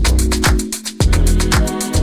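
Background electronic dance music with a steady beat: a deep kick drum about twice a second under quick hi-hat ticks.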